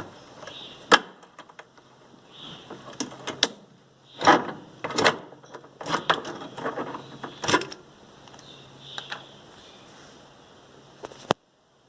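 Sharp clicks and clattering knocks of washing-machine parts and tools being handled, thickest in the middle, over a faint steady hum; the sound cuts off suddenly near the end.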